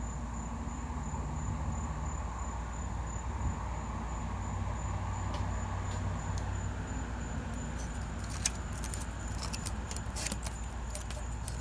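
Light metallic clicks and rattles, many in quick succession from about eight seconds in, as the thin steel leaves of a feeler gauge are handled to check valve clearance, over a steady low hum.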